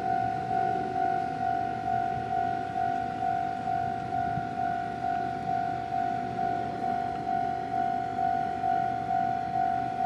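Japanese railway level-crossing warning alarm ringing its "kan-kan" tone, about two even strokes a second, each stroke a steady ding that starts sharply and fades.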